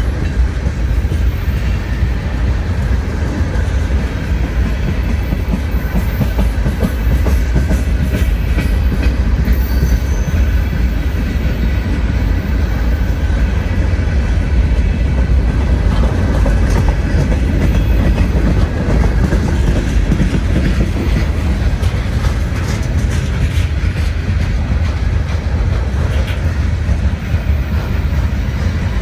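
Freight train rolling past close by: a steady, heavy rumble of railcar wheels on the rails that goes on unbroken.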